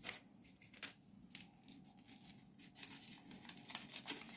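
Small paper sachet of vanillin being torn open and handled: faint crinkling rustles and a few soft clicks, busier near the end as it is tipped over the bowl.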